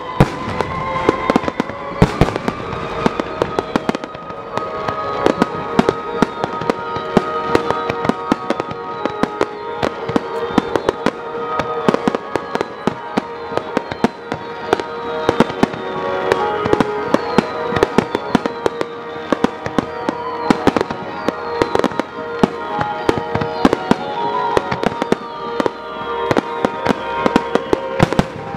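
Fireworks finale barrage: shells and underwater fireworks bursting in rapid, irregular succession, several sharp bangs a second, over music with sustained tones.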